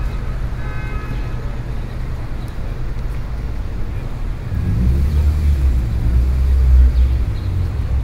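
City street traffic: a steady low rumble of cars. A vehicle passes close and louder from about halfway through until near the end. A few short high tones sound in the first second.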